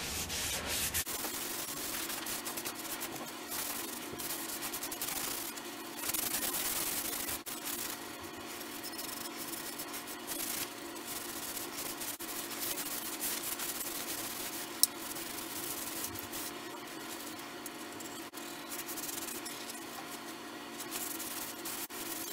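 Rag rubbing along a stained wooden rifle stock in repeated wiping strokes, taking off the excess wood stain. A steady low hum runs underneath, and there is one sharp click about fifteen seconds in.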